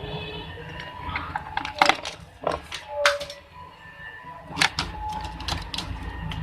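Irregular sharp clicks and taps, in two clusters, from small hand work on tiny plastic phone side-button pieces as they are trimmed down in height, over a low steady background hum.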